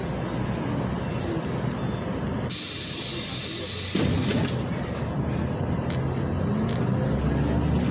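Inside a LiAZ 6213.21 articulated city bus under way, the MAN D0836 diesel running, with a sharp hiss of compressed air from the bus's air system about two and a half seconds in that lasts about a second and a half. Near the end the engine note grows louder as the bus pulls.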